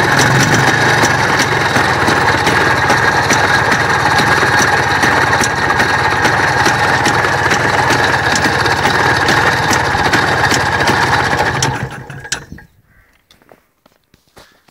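Vehicle engine idling steadily with a repeated tick over the running, the extraneous noise the owner is trying to show; the engine stops about twelve seconds in.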